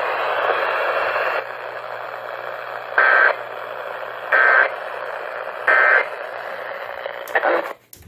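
Three short Emergency Alert System end-of-message data bursts, buzzy warbling tones about 1.3 s apart, over steady radio hiss from a portable Eton hand-crank emergency radio; they signal the end of the alert. A couple of clicks come near the end.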